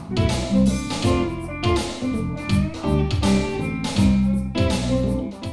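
Background music led by a strummed guitar, playing over the closing card and cutting off at the very end.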